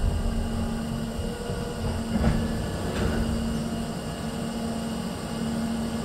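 Vancouver SkyTrain car coming to a stop, heard from inside the car. The low rumble of the moving train dies away within the first second, leaving a steady hum from the standing train, with two faint short squeals about two and three seconds in.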